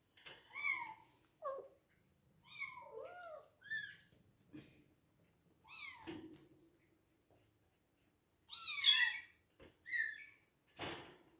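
Hungry Bengal kittens meowing repeatedly: about seven short, high-pitched meows that mostly fall in pitch, the loudest a little before the ninth second. A short click comes near the end.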